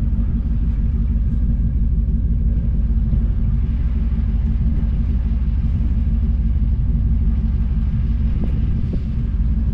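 Engine idling with a steady low rumble, and a couple of light knocks near the end.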